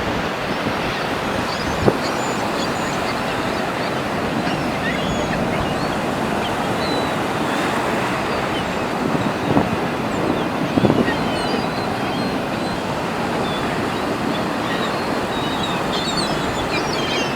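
Steady wash of surf and wind noise, with many short, high bird calls scattered through it.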